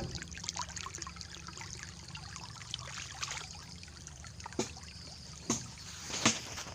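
Floodwater running and trickling, a steady flow with many small splashes, and three short sharp sounds in the second half.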